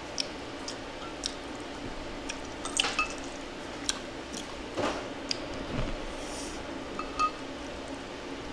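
Eating utensils clinking against dishes, about a dozen short sharp clinks scattered throughout, with wet, squishy eating sounds between them.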